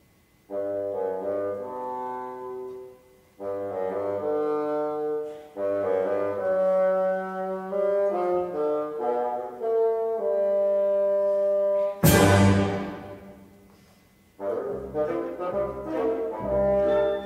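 Concert wind band playing sustained, brass-led phrases broken by short pauses. A clash-cymbal crash rings out and decays about twelve seconds in, then the full band comes in.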